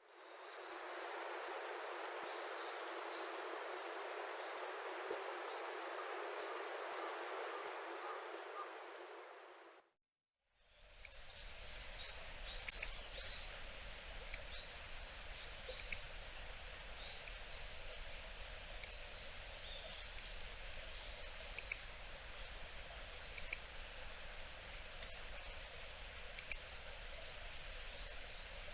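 Hawfinch giving short, sharp, very high-pitched calls: a quick irregular run of loud calls at first, then, after a brief silence, a steadier series of about one call every second and a half.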